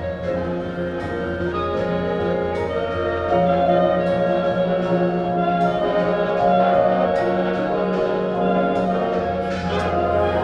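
Marching band playing its field show: the brass holds full chords over a steady bass line, punctuated by percussion hits. The brass swells louder about three seconds in.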